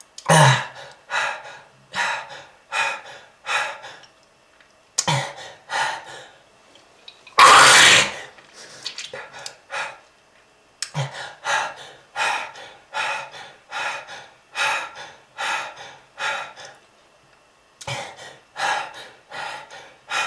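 A person in a hard coughing fit: runs of harsh coughs and gasping breaths, about one a second, with one longer, louder hack about halfway through. The coughing is presented as that of a smoker with lung disease.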